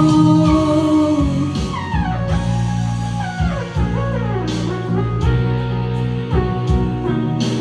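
Instrumental break of a slow pop ballad: a lead melody line sliding down in pitch over held chords, with a light drum beat.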